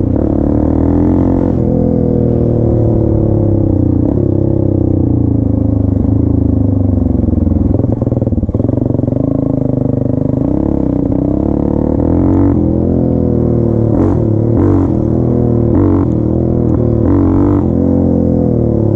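Suzuki DR350's single-cylinder four-stroke engine running under way. Its pitch rises and falls several times as the throttle is opened and closed, with a few short clatters in the last third.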